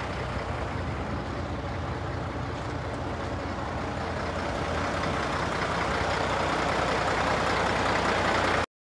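Scania 93M 210's six-cylinder diesel engine running steadily, growing louder over the last few seconds, then cutting off suddenly near the end.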